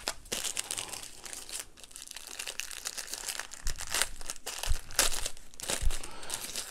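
Thin white packaging wrap being crumpled and unwrapped by hand, crinkling and rustling in irregular bursts, with a few soft low bumps.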